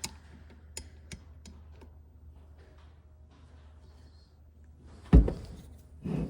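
Hand tools working the 10mm bolts on a 7.3L Powerstroke turbocharger: a few light metal clicks in the first second and a half, then two heavier clunks near the end.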